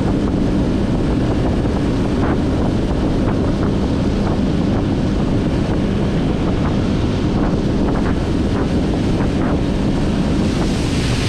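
Outboard-powered speedboat running at speed: a steady engine drone under heavy wind buffeting on the microphone and the rush of water along the hull.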